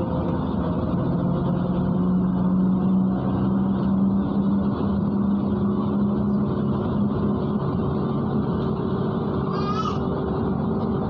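MAZ-103 city bus driving, heard from inside the cabin: a steady engine and drivetrain drone with a whine whose pitch shifts partway through. A brief high squeak comes near the end.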